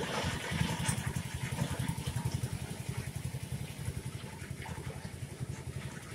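A motor engine running with a low, fast, even throb, loudest in the first couple of seconds and easing off toward the end. It opens with a short burst of noise.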